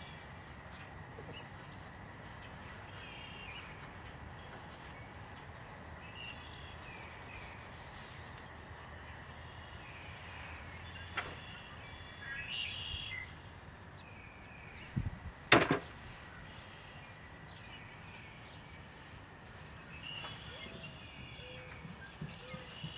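Birds chirping again and again over a steady low background, with a few sharp clicks and one loud knock about two-thirds of the way through.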